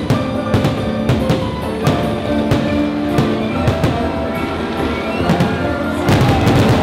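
Fireworks show soundtrack: orchestral music with drum hits, played over loudspeakers while firework shells burst overhead. About six seconds in, the sound gets louder and denser.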